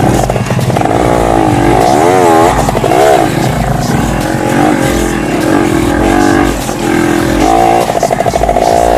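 Off-road motorcycle engine revving, its pitch swinging up and down again and again as the throttle is worked, with a sharp rise near the end.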